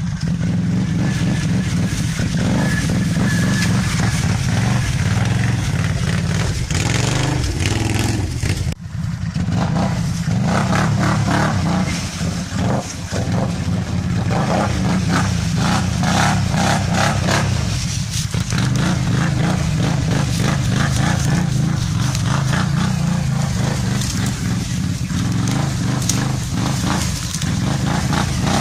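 Quad ATV engine running and revving under load as it churns through flooded mud and water, with a noisy wash of splashing over the steady engine note. The sound drops out briefly about nine seconds in.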